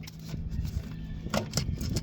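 A few sharp metallic clicks and scrapes of hand tools working a starter mounting bolt loose, over a steady low hum.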